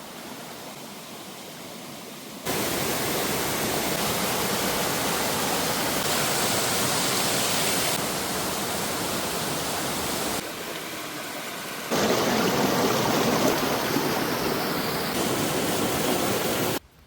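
Waterfall: water rushing and splashing in a steady, dense hiss. The level jumps abruptly several times, quieter in the first couple of seconds, then louder.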